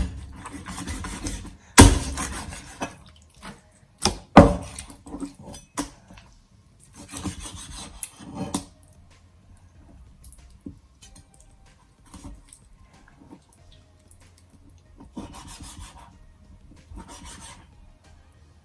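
Knife cutting raw chicken into pieces on a cutting board: sharp chops against the board about two and four seconds in, between stretches of the blade working through the meat. The cutting grows sparser and quieter after about nine seconds.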